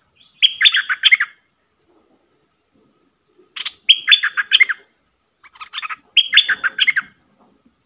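Bulbul singing three short phrases of rapid, warbled notes, a couple of seconds apart.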